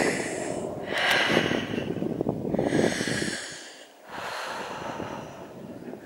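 A walker breathing hard and close to the microphone, about four heavy breaths, over a rough low rumble of wind buffeting and handling on the microphone.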